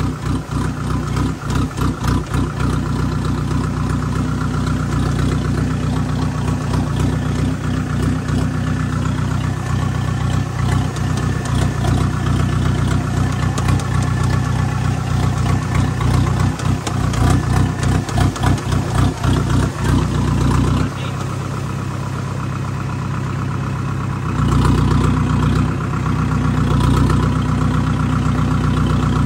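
A vehicle's engine running steadily with a low, even throb. Its note changes and drops slightly for a few seconds about three-quarters of the way through.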